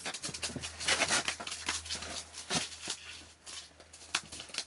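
A freshly landed kokanee flopping and slapping on packed snow while a hand scrabbles to grab it: a run of irregular sharp slaps and scuffs that thins out near the end.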